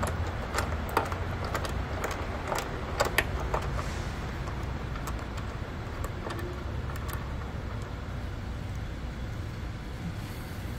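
Scattered, irregular metallic clicks and clinks of hand tools and bolt hardware while a light is bolted under a Jeep's rock slider, over a steady low background hum.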